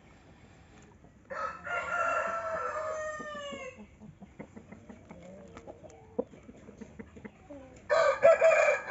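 A rooster crows: one long call of about two and a half seconds that falls in pitch at its end. Near the end a second, louder crow begins.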